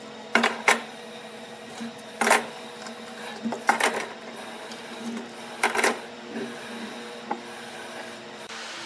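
Steel bar clamps being loosened and lifted off a glued-up wood block, then set down on a wooden workbench: a string of sharp metal clanks and clicks, some in quick pairs, over a steady low hum.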